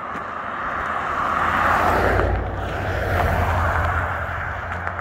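Vehicles passing on a road: tyre noise and engine rumble swell to a peak about two seconds in, peak again about a second later, then fade.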